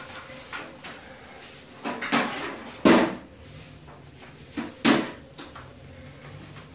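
A few sharp knocks and clatters in a small room, the loudest about three seconds in and another about five seconds in.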